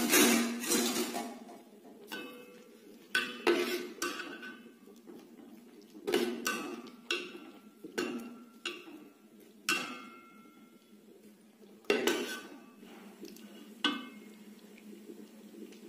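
Metal ladle clinking against the side of a metal cooking pot while stirring rice and jaggery: a dozen or so sharp clinks at irregular intervals, each ringing briefly.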